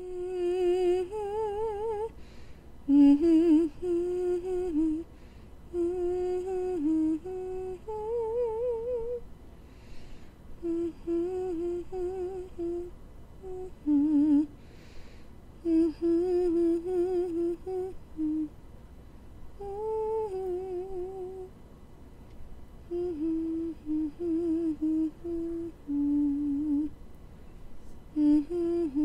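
A woman humming a slow tune with vibrato, in short phrases broken by brief pauses.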